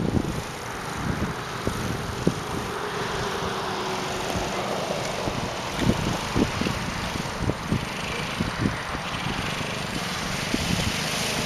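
A small youth ATV's engine running at a distance as it drives across grass, with irregular low thumps of wind on the microphone.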